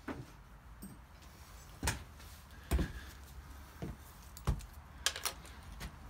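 Scattered sharp metal clicks and clinks, about seven irregular taps, of hand tools, nuts and washers being handled against a Volkswagen Beetle engine case during disassembly.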